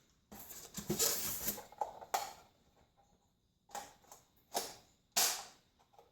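Handling noises of an airsoft rifle and its packaging: a stretch of rustling and clatter, then a few separate short knocks, the sharpest a little after five seconds in.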